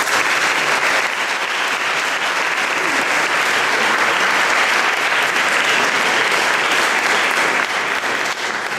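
Audience applauding: steady clapping that begins to die down near the end.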